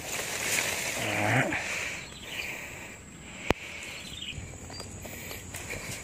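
Leaves, weeds and dry brush rustling as a person pushes through undergrowth. A short low vocal hum comes about a second in, and a single sharp click about halfway through.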